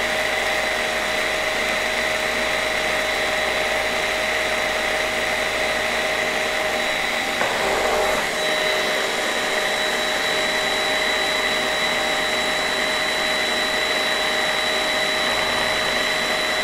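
Electric mini food processor running continuously with a steady high motor whine, emulsifying a white-chocolate and cream ganache. The tone shifts briefly about halfway through.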